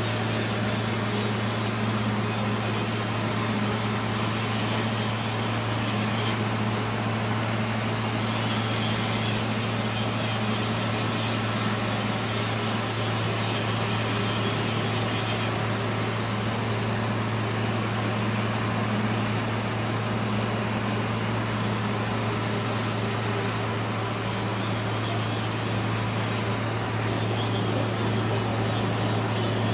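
A steady low mechanical hum, with a high hiss over it that drops out twice and comes back.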